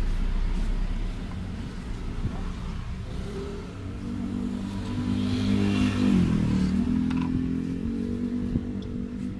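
A motor vehicle engine running steadily, its pitch dipping and rising again about six seconds in.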